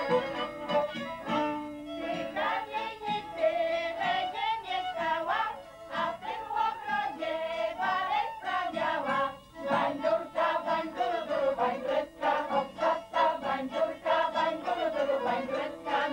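Łowicz folk tune played on fiddle and accordion, with a group of voices singing along in chorus.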